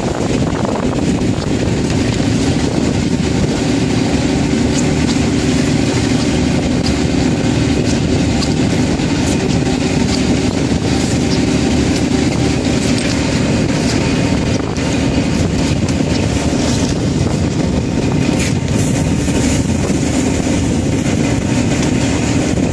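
Fishing boat's engine running steadily while under way: a loud, even drone with water and wind noise over it, and light knocks now and then.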